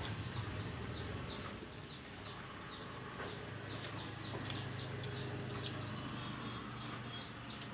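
Birds chirping in short, quick, falling notes, two or three a second, over a steady low hum.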